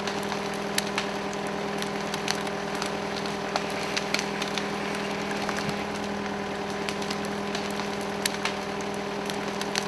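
A tractor engine runs steadily, driving a hydraulic capstan winch, while a log choked with a chain is dragged over dry leaves and twigs, giving scattered crackles and snaps.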